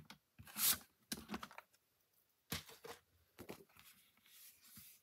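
Blue cardstock being scored with a paper trimmer's scoring blade, then lifted off and handled. A few short scraping strokes and paper rustles.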